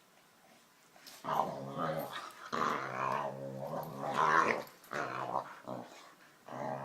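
Dog growling: about four drawn-out, wavering growls, starting about a second in, the longest lasting about two seconds.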